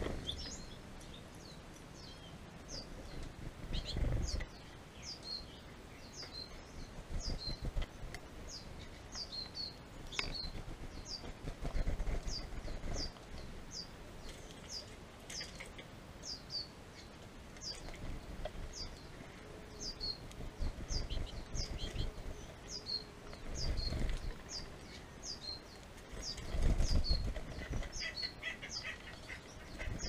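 Small finches flutter their wings as they land on and leave a tube seed feeder close by, in a few low, noisy gusts of a second or so. Throughout, a bird repeats a short high chirp that slides downward, about once or twice a second.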